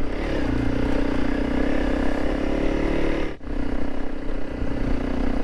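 Honda CRF300 Rally's single-cylinder engine running steadily as the motorcycle climbs a dirt track, with one brief break in the sound about three and a half seconds in.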